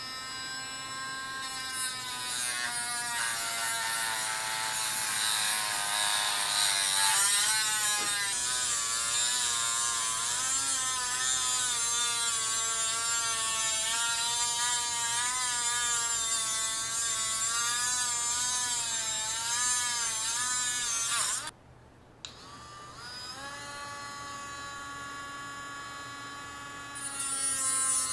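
Dremel rotary tool whining at high speed as it cuts through a motorcycle drive chain that has no master link, its pitch wavering up and down as it loads in the cut. It stops briefly about three quarters of the way through, then spins back up and climbs in pitch near the end.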